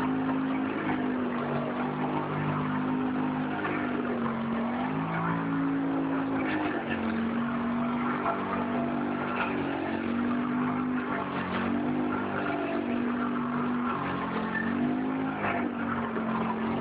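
ATV engine running under changing throttle, its pitch dipping and rising again several times as it rides off-road.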